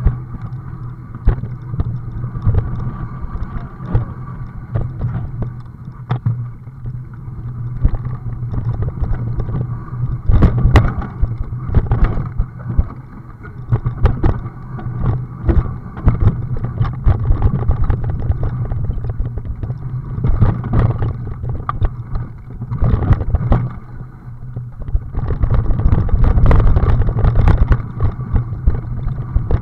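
Knocks, jolts and rattles from riding fast over a rough dirt forest trail, picked up by a mounted action camera, over a steady low hum. The bumping gets heavier about ten seconds in and again near the end.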